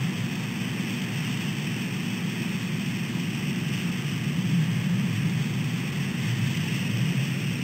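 Steady low rumble of road traffic with a faint hiss of rain.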